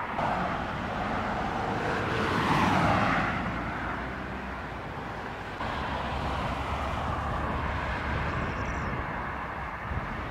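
Road traffic: car tyre and engine noise, with one car passing close about two to three seconds in, swelling and fading away.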